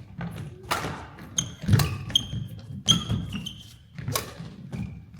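Badminton rally: rackets striking the shuttlecock four times, about once a second, with shoes squeaking on the court and footsteps thudding.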